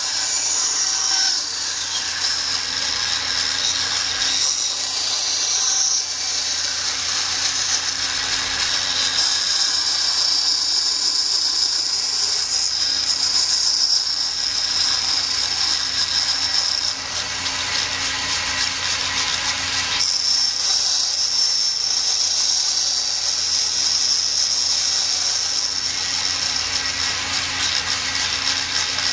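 Bandsaw running and cutting notches into a stack of birch plywood pieces: a steady machine whir with a higher hiss that comes and goes.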